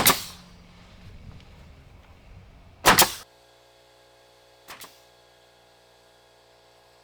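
Pneumatic nail gun firing twice, about three seconds apart, each a sharp loud shot as it drives a nail through the cladding boards. Fainter short clicks follow later.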